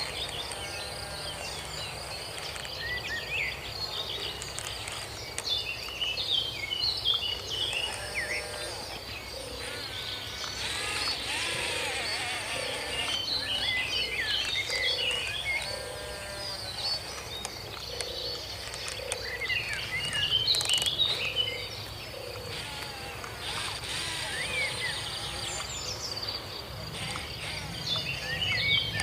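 Outdoor ambience: a steady, pulsing insect trill with many short bird chirps scattered through, over a low steady hum.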